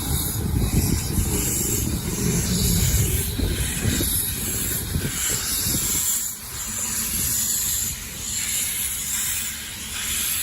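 Narrow-gauge steam locomotive running with a steady hiss of steam over a low rumble. The rumble drops away about six seconds in, leaving mostly the hiss.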